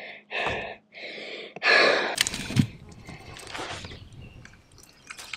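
Excited breathy whispers and gasps, then a knock and scattered clatter from handling a fish and a landing net on a boat deck.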